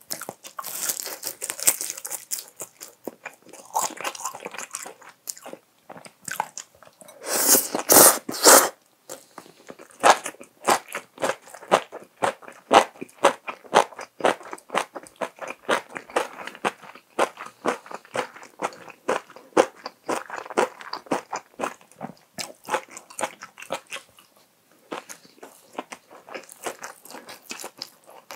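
A person chewing crunchy stir-fried seaweed stems with seasoned laver: a quick run of crisp crunches, several a second, with a louder crackly burst about eight seconds in.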